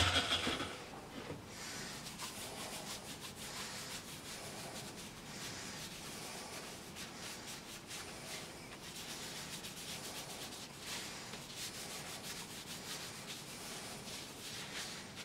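Hand-rubbing on a small turned oak cup, a steady run of short rubbing strokes like hand sanding.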